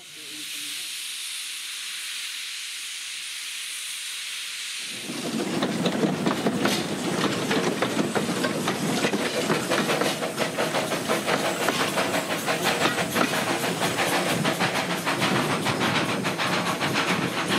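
Narrow-gauge steam locomotives: first a steady hiss of escaping steam. About five seconds in it gives way to a louder, rapid chuffing and hissing as a double-headed steam train gets under way.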